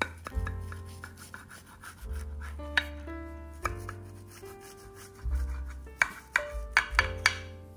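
Kitchen knife cutting through a baked spinach frittata in a ceramic baking dish, the blade rubbing through the crust and clicking against the dish, with a quick run of sharp clicks near the end. Background music plays underneath.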